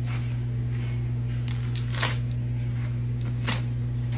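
Fresh turnip-green leaves rustling and crinkling as they are laid onto a metal tray, in a few short crackles, the loudest about two seconds in. A steady low hum runs underneath.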